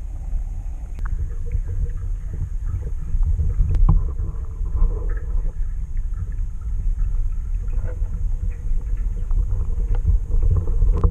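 Muffled underwater sound heard through a camera held under lake water: a steady low rumble of moving water, with a few sharp clicks.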